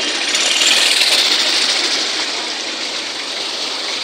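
Steady loud rush and splash of floodwater churned up by vehicles driving through a flooded street, swelling about a second in and then easing.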